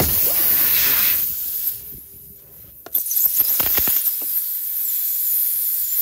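High, steady hiss of air escaping from a puncture in a Ford Transit Connect's tire as a string plug is worked into the hole with an insertion tool. The hiss drops out for about a second, then returns with a few short scraping clicks.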